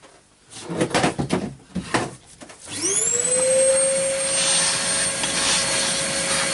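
Parts clatter and knock briefly, then an electric motor spins up about three seconds in and runs at a steady speed with a high whine.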